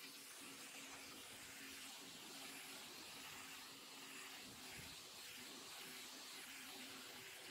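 Pressure washer jet hissing steadily as it blasts dirt off concrete roof tiles, with a steady hum from the machine underneath.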